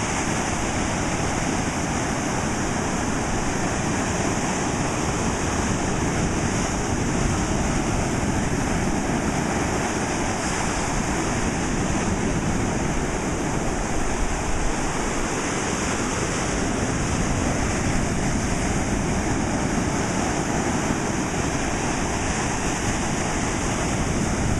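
Ocean surf: waves breaking and washing in the shallows, a steady, continuous rushing.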